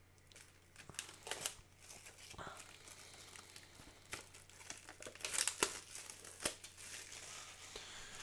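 Plastic shrink-wrap being picked open and peeled off a steelbook case, crinkling and tearing in irregular crackles, loudest about five seconds in.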